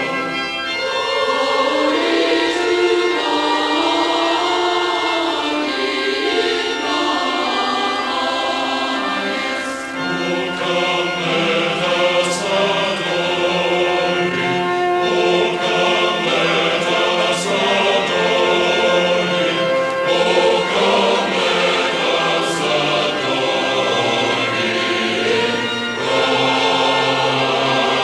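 Choral music: a choir singing. A lower part comes in about ten seconds in, with a faint high strike about every five seconds.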